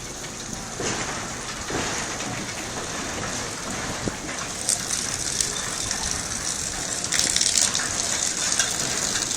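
Water rushing and splashing in a steady hiss that grows louder about seven seconds in.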